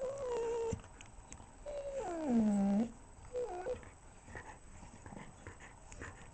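Dog whining while chewing on a toy: three pitched whines, the second long and falling in pitch, followed by faint chewing clicks.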